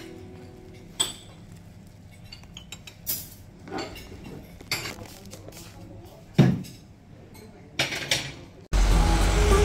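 Cutlery and plates clinking against steel buffet trays as food is served: a few scattered sharp clinks and taps, the loudest about six seconds in. Music cuts in abruptly near the end.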